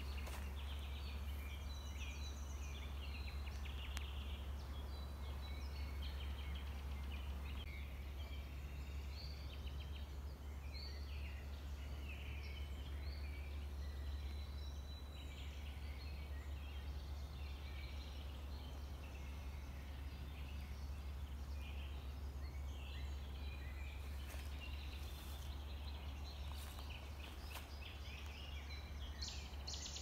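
Many small birds chirping and singing at once, short calls scattered throughout, over a steady low rumble.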